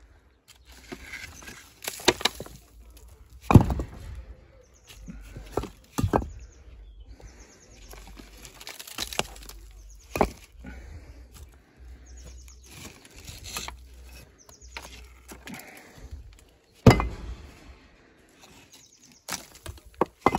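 Old bricks being pulled from a crumbling wall and set down on a pile: irregular hard knocks and clacks of brick on brick, with scraping and crumbling mortar between them. The loudest knocks come about 3.5 s and 17 s in.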